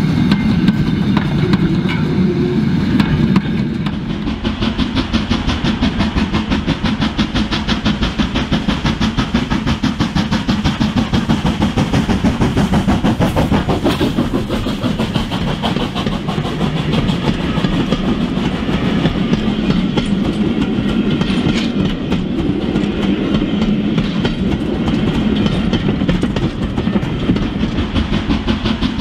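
OO gauge model train running along the track: a fast, even clicking of wheels over the rail joints over a steady low hum.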